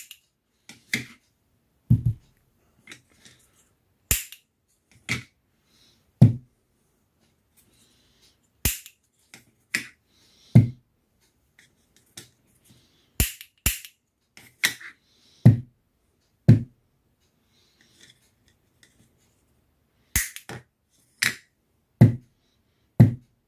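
Piezo lighter igniter snapping as it is pressed again and again, sharp single clicks about once a second at an irregular pace, some in quick pairs; each snap fires the spark that acts as the transmitter for the coherer.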